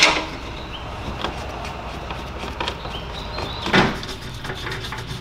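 A car's underbody skid plate being pushed up into place by hand, knocking and scraping against the underside of the car. There is a sharp knock at the start and another a little under four seconds in, with light ticks between them as the bolts are started.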